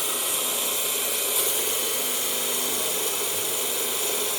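Steady mechanical noise with a fast, fine rattling texture, and one short click about a second and a half in.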